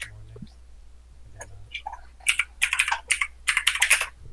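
Rapid typing on a computer keyboard, about six or seven keystrokes a second, starting about two seconds in.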